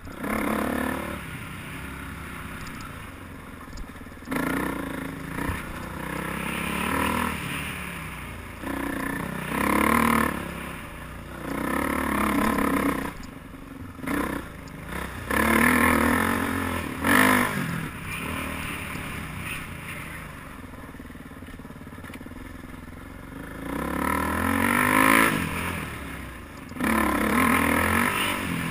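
Dirt bike engine running hard along a trail, revving up and dropping back over and over as the throttle is worked, with scraping and clattering from the bike over the rough ground.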